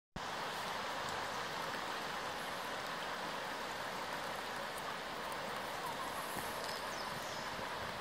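Shallow mountain stream flowing gently over a pebble bed: a steady rush of water.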